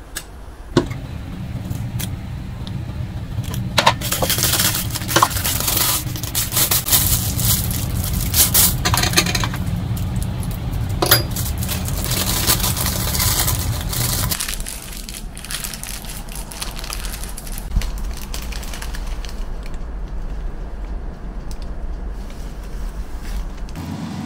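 Metal spoon clinking against a glass Nutella jar while scooping the spread into a plastic piping bag, with the plastic bag crinkling and rustling as it is handled. A steady low hum sits underneath and stops about two-thirds of the way through.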